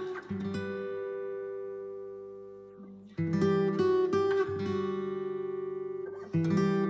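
Background music on acoustic guitar: strummed chords, with a chord left to ring out and fade twice before the strumming picks up again.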